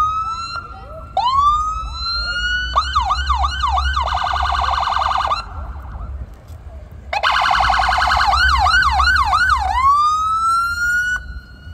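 Electronic emergency-vehicle siren stepping through its modes. It gives two rising wails, then a fast up-and-down yelp, then a rapid warble, and cuts out for about a second and a half. It comes back with the warble and yelp and ends on a rising wail.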